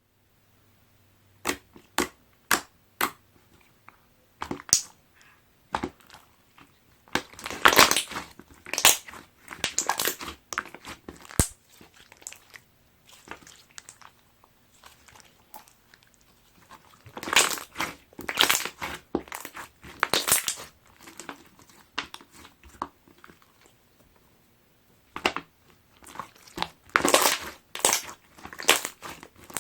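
Slime packed with small plastic D-form beads being squeezed and pressed by hand, giving bursts of crackling, popping clicks. A few sharp single clicks come first, spaced about half a second apart.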